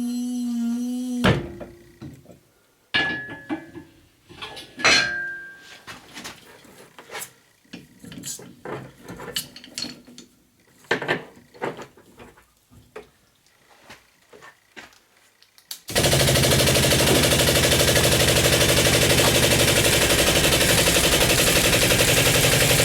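A tone with overtones slides down and stops about a second in. Scattered metal clanks and knocks follow during scrapping work on a refrigerator. About two-thirds of the way through, a machine starts suddenly and runs loud and steady with a fast, even rattle.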